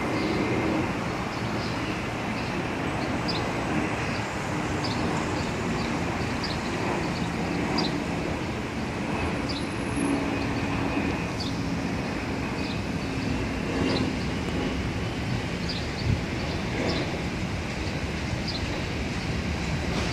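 Steady rumble of a distant subway train and street traffic around an elevated subway station, with short high chirps every second or so.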